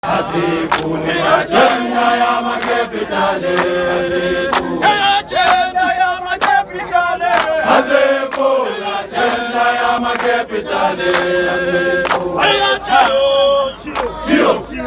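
A crowd singing a South African struggle song (igwijo) together in call-and-response style, with sharp hand claps throughout.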